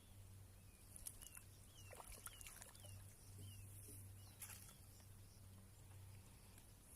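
Near silence: faint outdoor ambience with a steady low hum, a handful of faint short bird chirps and a few soft clicks.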